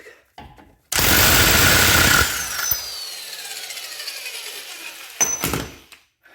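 Impact wrench with a 36 mm socket hammering on the car's front axle nut for about a second and a half, its motor then winding down in a falling whine, followed by a second short burst near the end as the nut comes loose.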